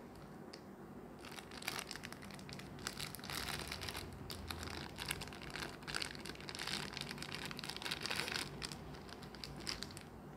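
Clear plastic packaging bag crinkling and crackling as hands open it and pull out a coiled 3.5 mm aux cable. It starts about a second in and dies away near the end.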